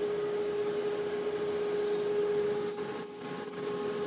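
A steady mid-pitched hum over a faint even hiss.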